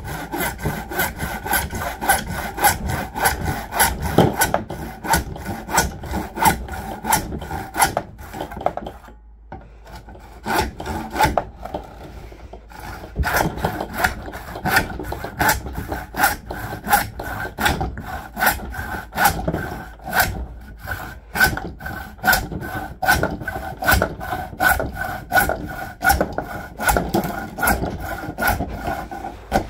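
Handsaw cutting through 1.5-inch PVC pipe in steady back-and-forth strokes, about three a second. There is a short pause about nine seconds in before the sawing resumes.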